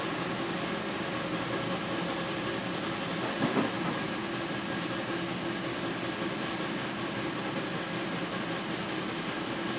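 Berlin U-Bahn car heard from inside while running: a steady rumble with a hum. About three and a half seconds in there are two quick knocks.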